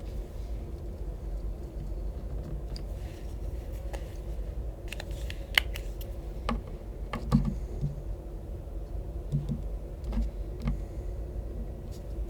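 Highlighter and paper being handled: a scattering of small clicks and taps, the sharpest a little over five seconds in and about seven seconds in, over a steady low hum.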